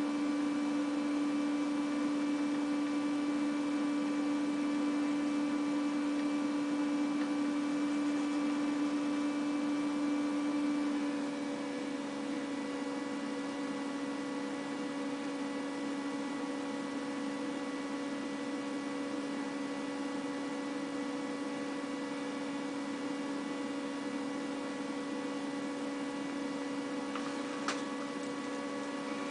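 Steady electrical hum made of several stacked tones, dropping slightly in level about eleven seconds in, with one faint click near the end.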